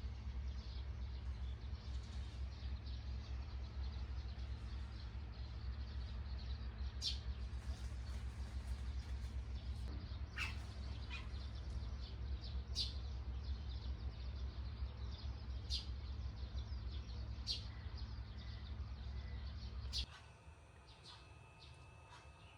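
Birds chirping, six or so short, sharp calls spaced a few seconds apart, over a steady low rumble. Near the end the rumble stops and only a faint steady hum remains.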